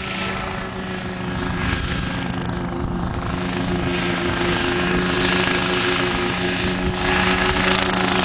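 Nolan coaxial ultralight helicopter flying: its engine and rotors drone steadily, growing louder as it comes closer.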